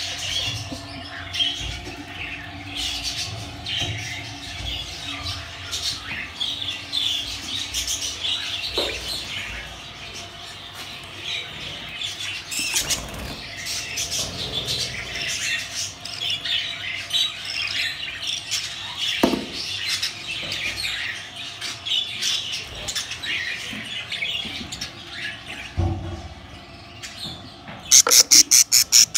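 Budgerigar chicks chirping and squawking, a constant chatter of short high calls. Near the end, one bird breaks into loud, rapid, repeated squeals, about five a second.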